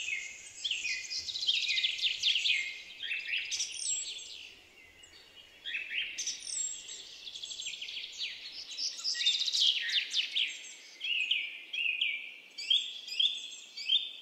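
Several birds chirping and twittering in quick, falling chirps. There is a brief lull about four seconds in, then the chirping picks up again.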